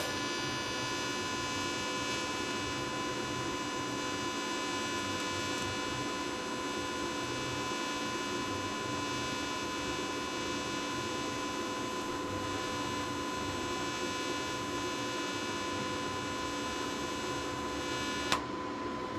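TIG welding arc running steadily with an even electrical buzz while a tack weld is laid; the arc cuts off with a click about 18 seconds in.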